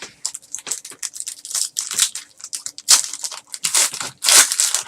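Trading card pack wrapper being torn open and crinkled, with cards rustling as they are handled: a run of short, irregular rustles and tears, loudest about three and four and a half seconds in.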